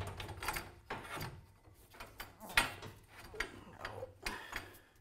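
Irregular metal clanks and scrapes as a garage door torsion spring's winding cone is worked with a steel winding bar, about ten knocks in all, the sharpest about two and a half seconds in.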